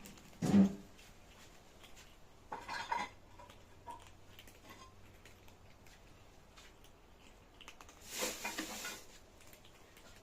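Dishes clattering: a sharp knock about half a second in, a short rattle near three seconds, scattered light clicks, and another brief clatter about eight seconds in.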